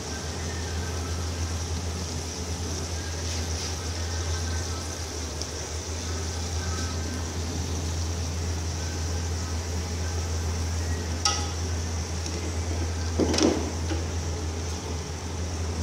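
Steady sizzling hiss from an aluminium pot on the stove while cooked rice is spooned in over the tomato layer, over a low steady hum. A metal spoon knocks against the pot twice near the end.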